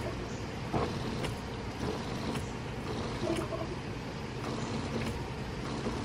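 2000 Evinrude 225 FICHT outboard failing to crank when the key is turned, because its battery is too weak: no engine turning over, only a steady low hum and a few faint clicks.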